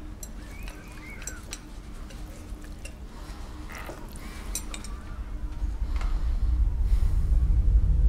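Cutlery clinking against dinner plates: a scatter of light, sharp clinks in the first half. From about halfway a low rumbling drone swells up steadily and becomes the loudest sound by the end.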